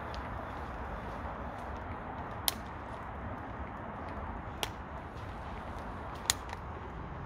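Three sharp, short clicks about two seconds apart over a steady background hiss of outdoor ambience.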